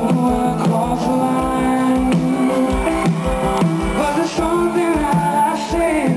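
Live pop-rock band music: guitar over a steady kick-drum beat, with a man singing a held, gliding melody in the second half.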